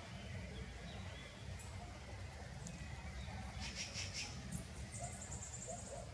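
Quiet outdoor ambience: a steady low rumble, with a few short high chirps a little after the middle and a rapid high trill about five seconds in.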